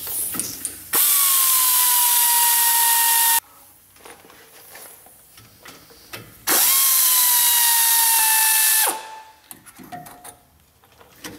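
Air ratchet running in two bursts of about two and a half seconds each, a steady whine that settles slightly lower in pitch, as it spins out the rear brake caliper bolts. Small clicks and handling noises come between the bursts.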